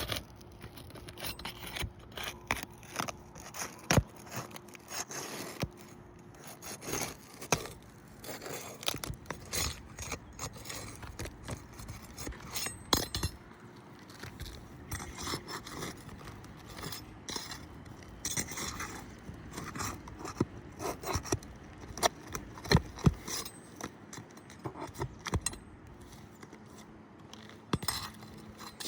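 Asphalt roof shingles being lifted and worked loose by hand: scraping and rubbing, with many sharp clicks and taps scattered throughout.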